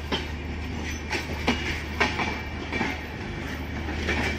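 LHB intercity passenger coaches rolling past, their wheels clacking irregularly over rail joints and points, about every half second, over a steady low hum.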